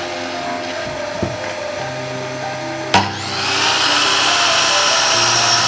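Mitre saw starting with a sharp click about halfway through, its motor whining up in pitch to full speed and then running steadily as the blade cuts a wooden board. Background music with held notes plays underneath.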